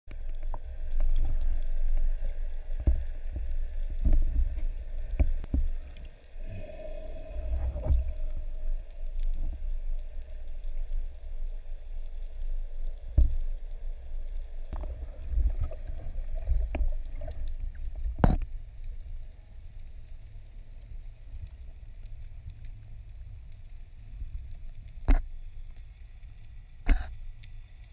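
Underwater sound through a camera housing during a dive: a low rumble of water moving past, with scattered sharp clicks and knocks. It gets quieter about two-thirds of the way through, with two louder knocks near the end.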